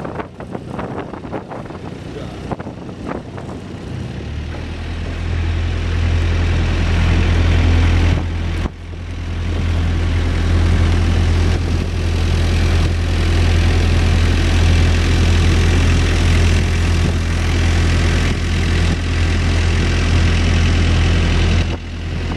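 Small motorboat's engine running under way: a steady low drone that comes in about four seconds in, dips briefly, then holds until just before the end. Water rushing along the hull and wind noise sit over it.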